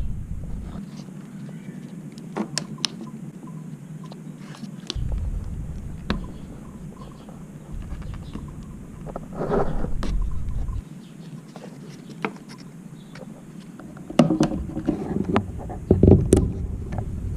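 Hands and tools at work on a car part: scattered sharp clicks and knocks with scraping and rustling, busier near the end.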